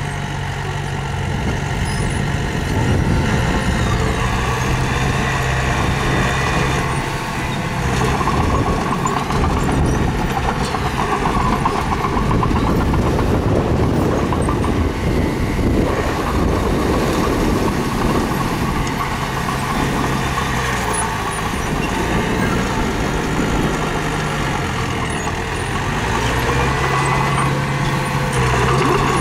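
Mini bulldozer's diesel engine working under load as it pushes stone, its engine note dropping back and picking up again several times, with a dense rattle loudest in the middle.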